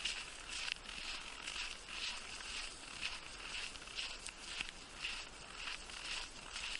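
Footsteps crunching in thin snow at a steady walking pace, about two steps a second.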